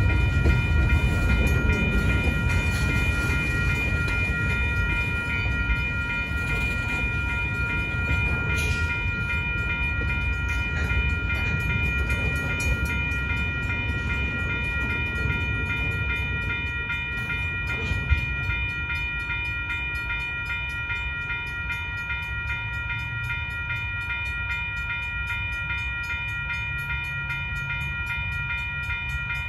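Western Cullen Hayes electronic crossing bell ringing steadily at a grade crossing, over the low rumble of freight cars rolling slowly past. The rumble eases off in the second half as the train slows almost to a stop, and there is a single sharp clank about 18 seconds in.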